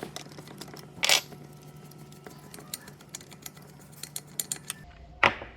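Small metal tools and parts being handled on the workbench: scattered light clicks and ticks as the piston stop is taken out of the chainsaw's spark plug hole, with a short louder rasp about a second in and another near the end.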